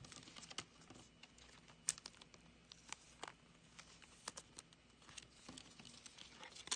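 Faint, irregular small ticks and crinkles of hands handling a glossy trading card and a thin plastic card sleeve.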